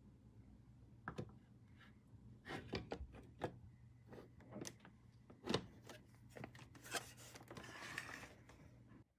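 Faint handling sounds: scattered light knocks and taps, then a short stretch of rubbing or rustling near the end, over a steady low hum.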